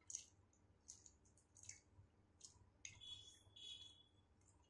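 Faint eating sounds of a person chewing instant noodles: scattered soft, wet mouth clicks, with a short hissy stretch about three seconds in.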